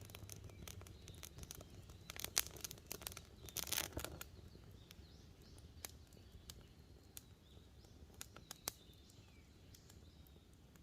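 Wood campfire crackling with sharp snaps and pops, a dense flurry of crackles about two to four seconds in, then scattered single pops; faint bird chirps in the background.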